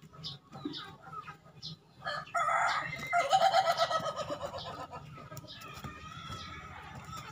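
Rooster crowing: one long crow starting a little over two seconds in and fading out around five seconds, with a few short clucks before it.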